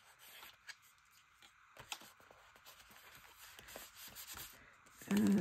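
Faint rubbing and rustling of paper as a card is glued and pressed down by hand, with a few small clicks.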